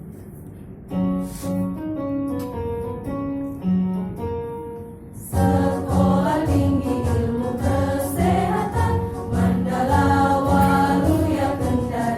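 A keyboard plays the introduction of a march with single held notes. About five seconds in, a mixed choir comes in singing the march over the keyboard accompaniment.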